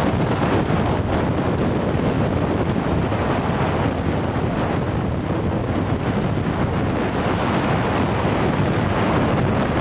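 Steady wind rushing over the microphone of a moving vehicle driving along an open road, with no change in level.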